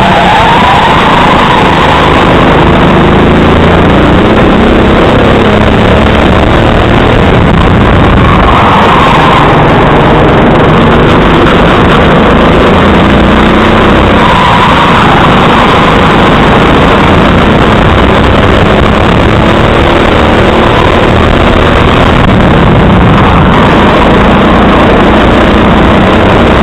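Racing go-kart engine, recorded on board the kart, running loud and continuous at high revs, its pitch rising four times as it accelerates out of corners.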